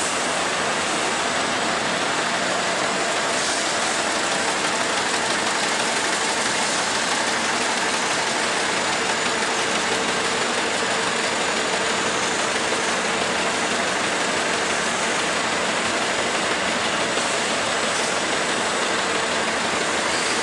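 Factory machinery running steadily: an even, unchanging noise with faint steady hum tones underneath.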